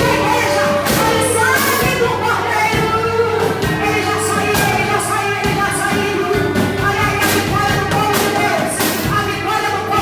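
Worship band music with singing, sustained notes and regular drum hits.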